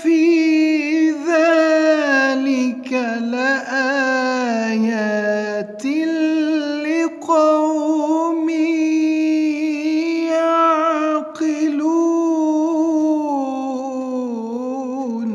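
A male reciter chanting the Quran in a slow melodic style: long held, ornamented vowels whose pitch wavers up and down, in a few drawn-out phrases with brief breaks between them.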